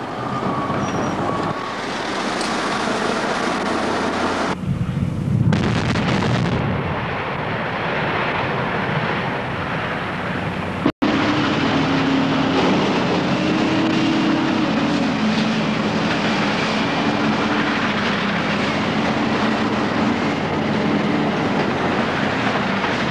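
Heavy quarry machinery running: diesel haul trucks, a front-end loader and a rock-handling plant working a rock pile. A hard cut about eleven seconds in, after which a steady low drone runs under dense machine noise.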